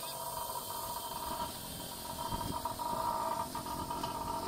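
Steady mechanical hum of shipboard machinery, holding several fixed tones, with a few faint knocks of steel tools.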